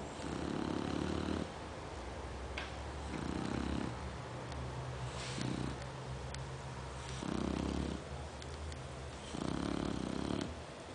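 Shar Pei dog snoring, five snores about two seconds apart, one of them noticeably shorter than the others.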